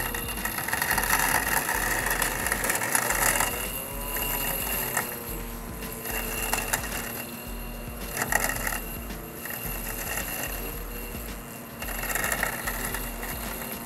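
Husqvarna Automower 315X robotic lawn mower running while it cuts long grass: a steady motor hum with a whine that rises and falls in pitch. Rougher cutting noise comes through three times, about a second in, near the middle and near the end.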